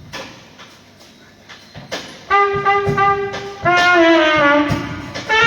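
A horn being tried out in a band's sound check: after a couple of seconds of low clicks, one loud held note, then a second note that slides downward, and a third starting near the end, with low thumps underneath.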